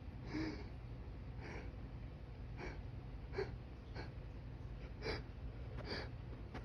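A man's short gasping in-breaths, about seven, spaced roughly a second apart, as an allergy sneeze builds up and is held back.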